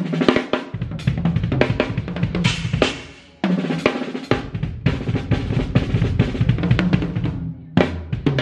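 Tama Hyperdrive drum kit with Sabian AAX cymbals played at a soundcheck: quick runs of hits on snare, toms and kick with cymbal crashes. About three seconds in the playing dies away, then starts again sharply.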